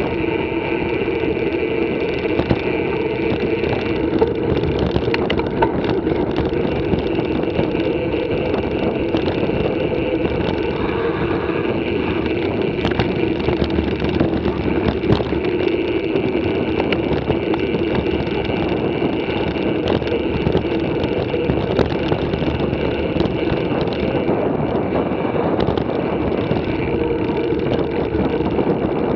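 Steady rushing noise of a mountain bike in motion, heard from a bike-mounted camera: wind on the microphone mixed with tyre noise on the paved and gravel track. Frequent small clicks and rattles from the bike run through it.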